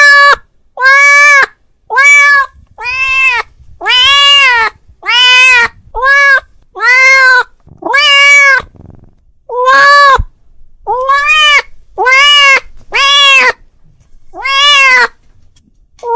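A cat meowing over and over, about once a second: loud, drawn-out meows that each rise and fall in pitch. It is a cat calling out to another cat.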